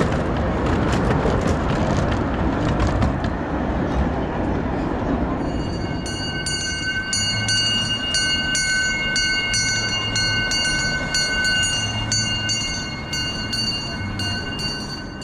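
Miniature railway train running on the track with a rumbling clatter; from about six seconds a steady high-pitched tone sets in and holds for about nine seconds before the sound fades away.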